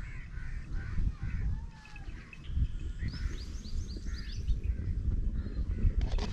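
Small birds chirping and calling, with a quick run of short rising chirps about three seconds in, over an irregular low rumble of wind on the microphone. A brief knock near the end.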